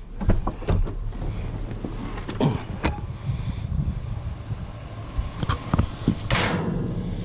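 Scattered knocks and clunks over the low, steady hum of a vehicle engine, with a louder brief rasp about six seconds in.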